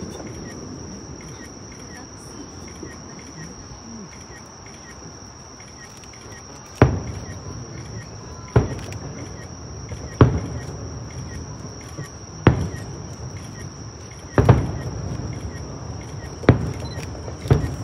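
Night insects chirping in a steady high trill. From about seven seconds in, fireworks shells burst with seven sharp booms a second or two apart, each trailing off in a low rumble.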